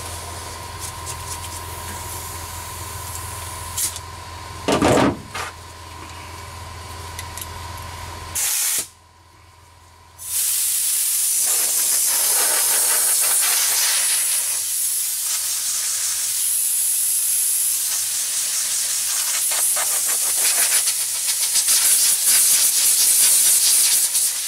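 Garden-hose spray nozzle hissing as water is sprayed onto the cured fiberglass patch of a Jeep hardtop. It starts about ten seconds in, after a brief drop to quiet. Before that there is a low steady hum with a short thump about five seconds in.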